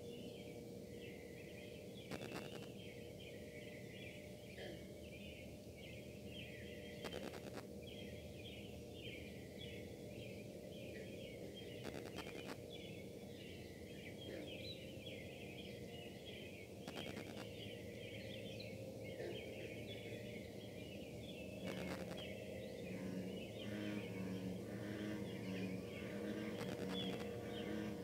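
Distant metal casting plant running: a steady industrial hum with a held higher tone, under a dense layer of high chirping. Faint clicks come about every five seconds, and a pulsing buzz from wifi interference sets in near the end.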